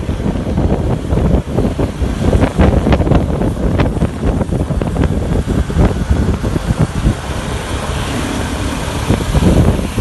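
Wind buffeting the microphone of a moving motorcycle, gusting unevenly, over the bike's running noise.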